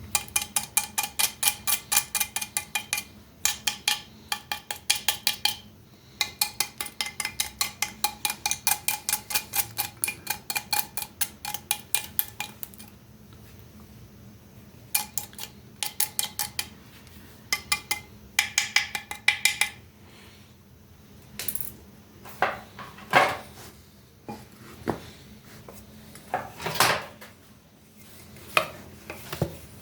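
A ringing metal object is struck or scraped in quick, even strokes, about five a second, in runs lasting several seconds. After that come a few separate knocks.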